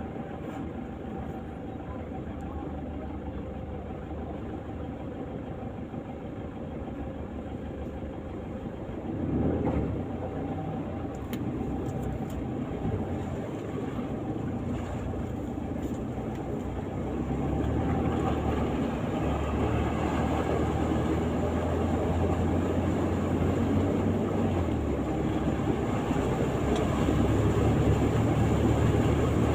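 Vehicle running with a steady low rumble that grows louder in the second half.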